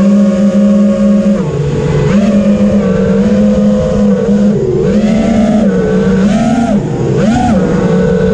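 Brushless motors and propellers of an FPV freestyle quadcopter (Emax Eco 2306 1700kv motors on 6S, with Johnny FPV props), recorded onboard. A steady, loud buzzing whine holds for the first few seconds with a short dip about a second and a half in. In the second half it rises and falls in pitch several times as the throttle is punched and eased.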